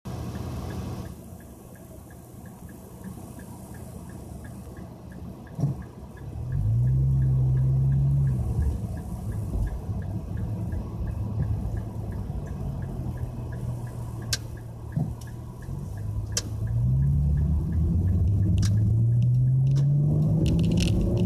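Nissan Fuga 350GT's 3.5-litre V6, through a one-off quad-tip exhaust, heard from inside the cabin: idling, then pulling away about six seconds in. Near the end the revs climb steadily under acceleration. A faint, evenly spaced ticking runs through the first part.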